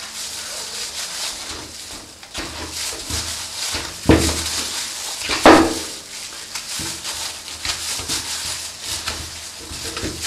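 A boning knife cuts and scrapes meat from a pork hind shank on a stainless steel table, with soft handling knocks over a steady hiss. Two louder short sounds come about four and five and a half seconds in.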